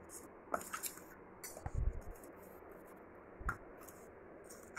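A spoon scraping and clinking against a steel bowl as turmeric paste is stirred, in a few faint, scattered strokes, with a dull knock a little before the middle.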